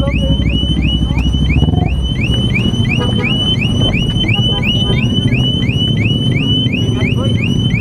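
Motorcycle engine idling with a low, steady rumble that shifts about two seconds in. Over it, a high, evenly repeated chirp sounds about three and a half times a second.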